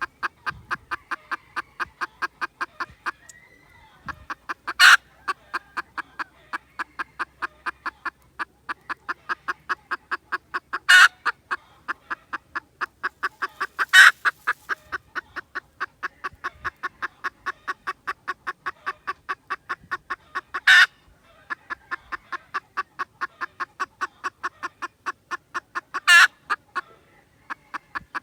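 Red junglefowl clucking in a rapid, very even series of about three or four clucks a second, broken five times by a louder, short call.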